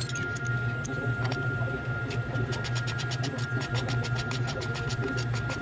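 Ratchet wrench clicking in a fast, even run, about eight clicks a second and densest from about halfway in, as the exhaust mounting bolts are done up. A steady low hum runs underneath.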